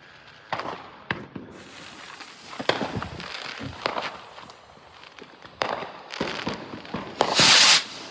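Firework bangs: a scattered series of sharp cracks and pops. Near the end comes a loud rushing hiss lasting about half a second, the sound of a firework rocket launching.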